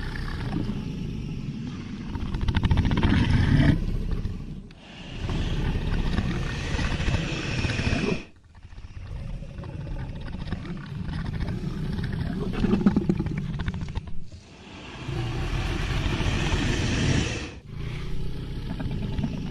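Sound-effect dragon roaring and growling: a run of about five long, deep roars, each a few seconds long, with short breaks between them.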